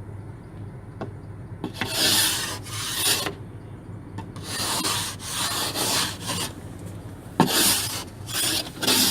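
Ice scraper scraping ice off a car in a series of short, irregular strokes that begin after a quiet first second and a half.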